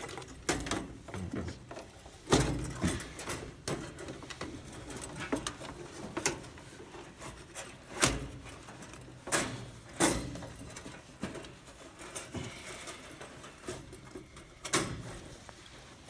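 Irregular knocks and clicks as wires and connectors are handled and pushed onto the terminals of an electric heat pack inside a sheet-metal air handler cabinet.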